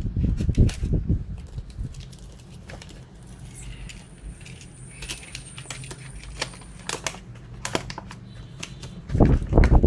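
Scattered clicks and light metallic clinks of boxed metal tools and their packaging being handled, over a steady low hum.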